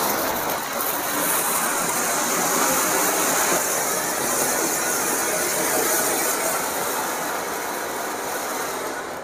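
Matka anar, a pot-shaped flower-pot fountain firework, burning: a steady loud hiss of spraying golden sparks that begins to die away near the end.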